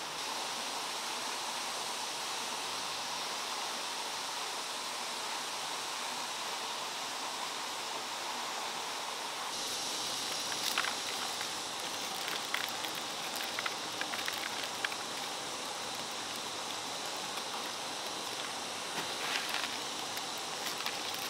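Steady outdoor hiss, then from about ten seconds in, scattered small clicks and rattles of dried corn kernels being twisted off the cobs by hand and dropping into a woven bamboo basket.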